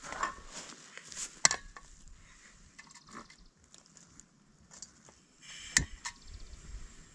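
Handling noises of a camp stove and cooking pot being set up: scattered light clicks and knocks, with a sharp one about a second and a half in and a louder knock near six seconds in.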